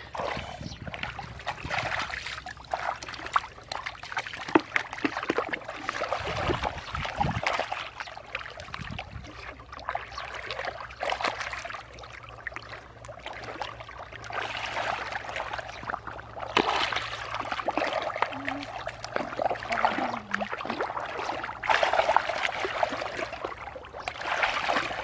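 Hands splashing and churning shallow muddy water in irregular bursts, as children grope through the mud by hand for fish.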